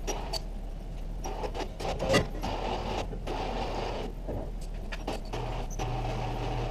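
Irregular knocks and clanks of heavy metal shop equipment being handled, the loudest about two seconds in, over a steady low hum.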